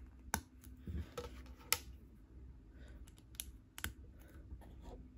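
Small plastic LEGO pieces clicking and tapping as they are handled and pressed together, several sharp clicks spaced irregularly about a second apart.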